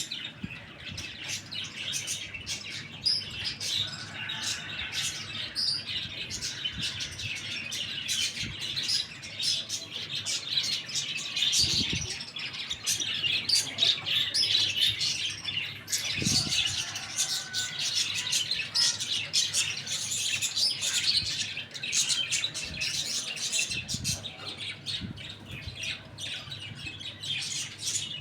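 Many small birds chirping and tweeting constantly, their calls overlapping as in a flock, with a few soft low thumps now and then.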